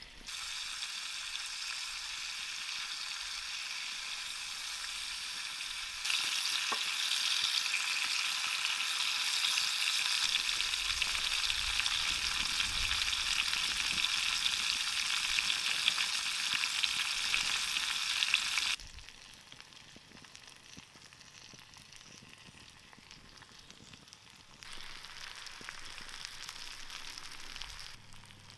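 Food sizzling as it fries in a pan. It comes in several abrupt sections of differing loudness: loudest from about six to nineteen seconds in, then much fainter, then louder again near the end.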